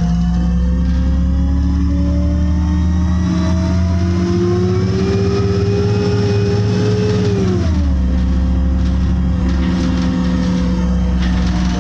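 City bus engine and drivetrain heard from inside the cabin as the bus pulls away: a steady low hum under a whine that rises in pitch for about seven seconds. The whine falls sharply about eight seconds in, then holds level.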